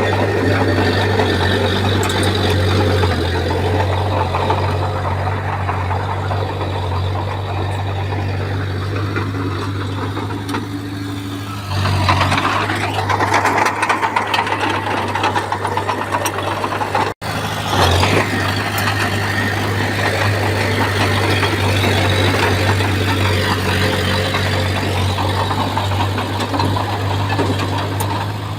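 Bulldozer's heavy diesel engine running steadily with a low hum. About twelve seconds in it grows louder and harsher, as if working harder. A few seconds later it cuts out for an instant, then runs on.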